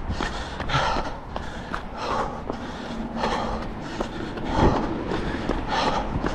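A runner breathing hard, with a noisy breath about every half second to second, over a steady low rumble.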